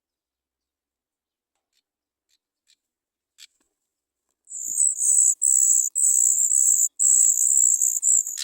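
Sooty chat nestlings giving high-pitched begging calls: a few faint chirps, then about halfway through a loud, continuous shrill chorus broken by short pauses.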